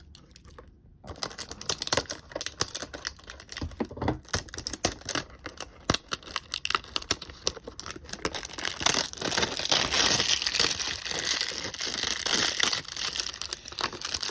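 Model building's cardboard box and plastic packaging being opened and handled: scattered clicks and rustles, turning into steady crinkling of plastic wrap from about nine seconds in.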